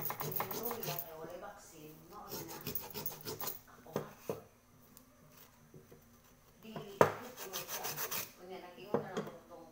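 Quick rasping strokes of something rubbed hard by hand against the bottom of an upturned metal cooking pot. The strokes come in spells with a quieter gap in the middle, and there is a sharp knock about seven seconds in.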